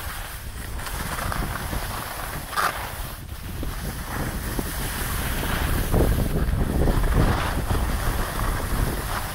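Wind buffeting the microphone while skiing downhill, with the hiss and scrape of skis sliding and carving on packed snow, swelling in several whooshes through the turns.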